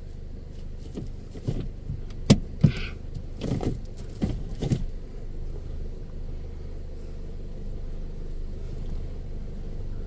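A vehicle's engine idling with a steady low rumble, with a few sharp knocks and clicks over the first half.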